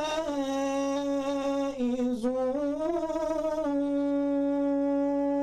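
A man chanting Quran recitation, drawing one melodic phrase out at length. The pitch weaves up and down for the first few seconds, then settles into a single long held note after about three and a half seconds.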